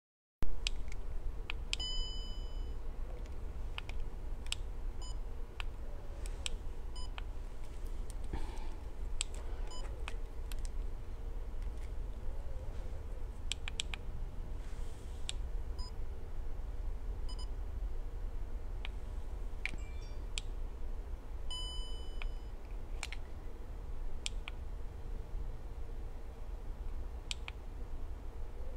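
Two short electronic beeps, one about two seconds in and one near the end, among scattered light clicks and taps over a steady low hum.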